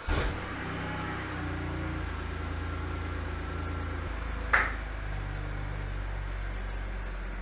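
BMW E92 3 Series engine running at idle, its note shifting about four seconds in as the car pulls away, with one short sharp click soon after.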